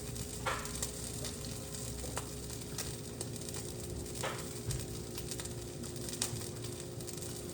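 Mushrooms and cherry tomatoes sizzling in a hot frying pan, with scattered pops and crackles. A faint steady hum runs underneath.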